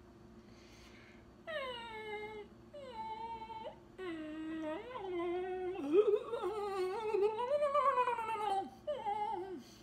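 A man imitating a dog's whimpering with his voice: two short high whines that slide downward, then a long wavering whine of about four seconds, and a last short falling whine near the end.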